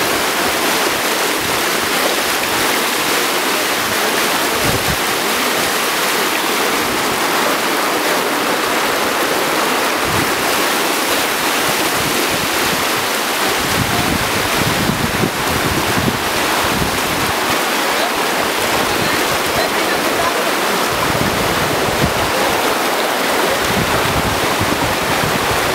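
Muddy floodwater rushing and churning across a road: a steady, loud rush of turbulent water.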